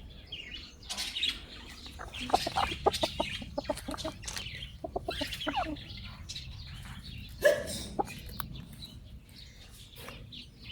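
Chickens clucking, with runs of short, quick clucks and one louder sharp sound about two-thirds of the way through.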